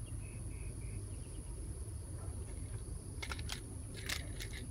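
A steady high-pitched insect drone over a low rumble, with a few sharp faint clicks about three to four seconds in.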